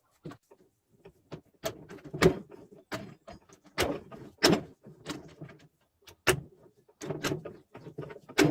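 Irregular metallic clunks and knocks, about a dozen in quick uneven succession, the loudest a little over two seconds in and near the end, as heavy gearbox parts are handled and knocked together.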